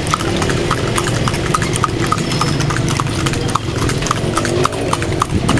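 Horse hooves clip-clopping on a paved road as a kalesa horse trots, about three to four even beats a second, over a steady low rumble.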